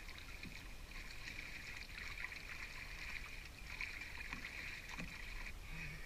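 Quiet shallow river water lapping and sloshing around people wading beside a boat, over a steady high-pitched background drone that swells and fades.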